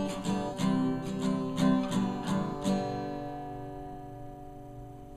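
Acoustic guitar strummed evenly, about three strums a second, ending on a final chord that rings out and fades over the last two seconds.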